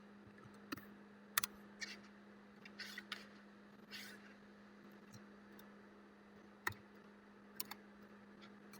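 Faint, scattered clicks of a computer keyboard and mouse, some single and some in quick runs, over a steady low hum.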